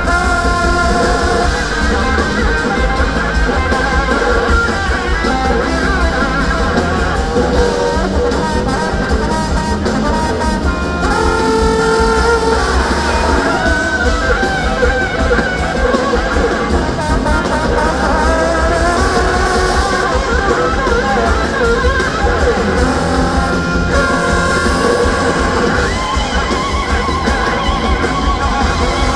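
Live band playing a rock-soul song with a horn section, keyboards and electric guitar.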